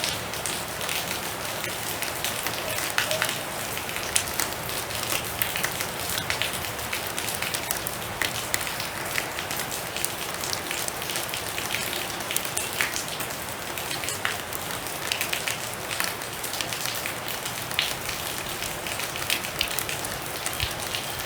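Storm rain falling steadily: an even hiss dense with sharp individual drop hits.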